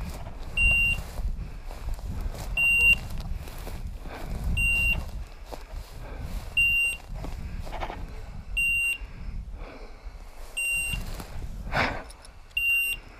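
A hunting dog's beeper collar giving a single short, high electronic beep about every two seconds. A low rumble runs underneath, and there is a brief rustle near the end.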